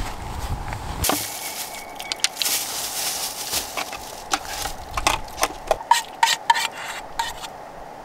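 Small dog licking and scraping its metal food bowl clean, a run of quick clicks and light clinks from tongue against bowl about five to seven seconds in. Wind buffets the microphone during the first second.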